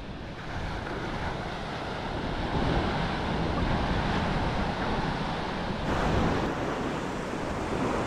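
Ocean surf breaking and washing up the beach, with wind blowing on the microphone; a louder wash comes in about six seconds in.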